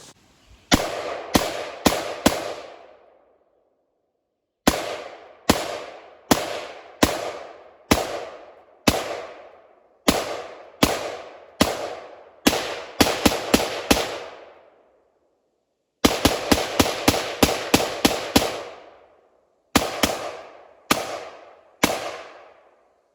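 Rapid semi-automatic rifle fire from an AR-15, in strings of shots about two to three a second with short pauses between strings, each shot ringing off in an echo.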